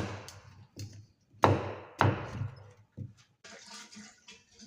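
Four sharp knocks at uneven intervals, each dying away quickly, followed by a faint hiss near the end.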